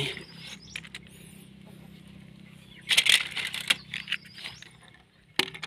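Small plastic toy vehicles and figures clattering as they are handled in a plastic mesh basket. There are scattered clicks, a short burst of rattling about three seconds in, and a sharp click near the end.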